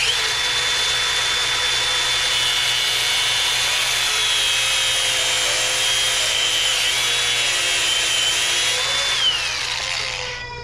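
Cordless angle grinder running under load, grinding a part held in a bench vise: a steady high whine over harsh grinding noise that starts suddenly. About nine seconds in, the whine falls in pitch as the grinder is switched off and spins down.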